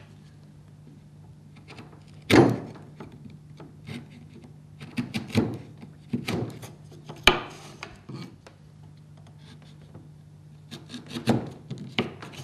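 Bench chisel pressed down by hand into a timber socket, paring away the last waste in the middle of a cross halving joint: scraping and crunching of wood fibres, with two sharp cracks, one about two and a half seconds in and one about seven seconds in, and a run of smaller clicks near the end.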